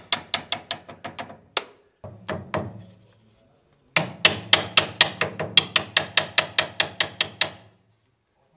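Rapid metallic tapping: a steel rod knocked repeatedly against the sand pipe of a miniature steam locomotive just above the rail, to work sand down onto the rail. About four or five sharp taps a second, in three runs with short pauses, the longest from about four seconds in to near the end.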